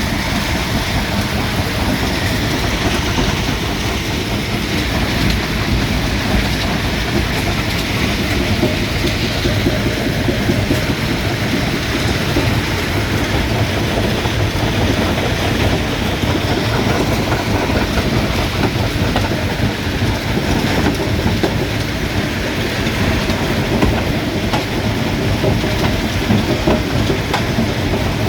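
Stone crusher running: a steady loud rumble with dense clattering of rock being crushed.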